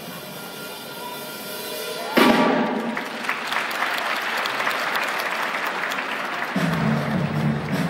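A held music chord, then a circus audience breaks into loud applause about two seconds in. Near the end a low, pulsing beat of the show music comes in under the clapping.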